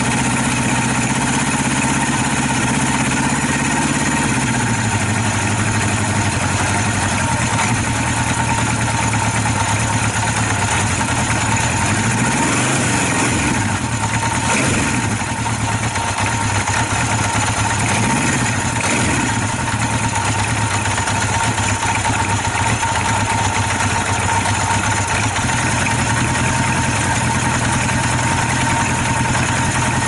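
Honda CB750's air-cooled inline-four idling, heard close at the exhaust pipes. The idle settles a little lower about four seconds in, with a couple of brief swells in engine speed near the middle.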